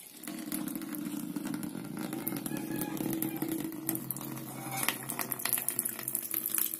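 Water pouring in a steady stream from a plastic jug into a small plastic container, splashing and gurgling as the container fills.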